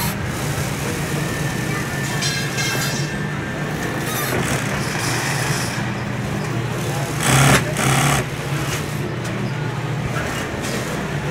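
Industrial sewing machine's motor running with a steady hum, with two short, louder bursts of noise about seven to eight seconds in.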